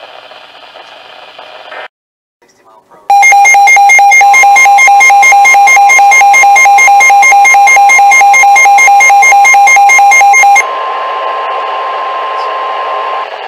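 NOAA Weather Radio's steady 1050 Hz warning alarm tone, partly masked for about seven seconds by a weather radio receiver's very loud, rapid electronic alert beeping. The beeping stops abruptly and the single steady tone continues over radio static, cutting off just before the end.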